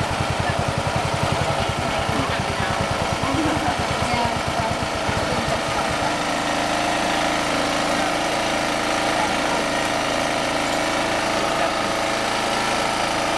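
A small engine running steadily, with a fast low thudding beat that fades out about five seconds in, leaving a steady hum.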